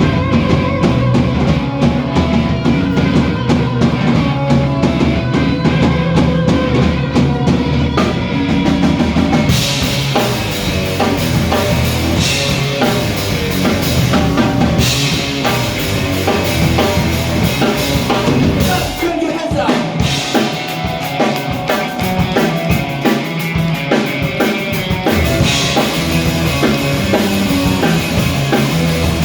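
Live rock band playing loudly, led by a drum kit with bass drum; the cymbals come in bright about nine seconds in, and the low end drops away briefly about two-thirds of the way through.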